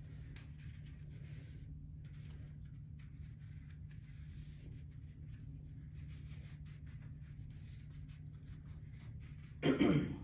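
Elastic athletic tape being wrapped around a foot and ankle: faint scratchy rubbing and handling noises over a steady low hum, with one short, louder burst just before the end.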